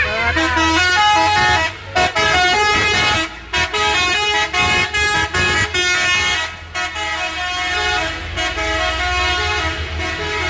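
Indonesian telolet-style musical bus horn playing a tune of short stepped notes with brief breaks between them, over the low running of a bus engine.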